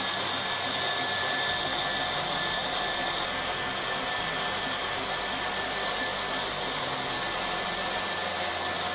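Blender jug on a kitchen machine running continuously at a steady pitch, blending a thin semolina-and-flour batter with water.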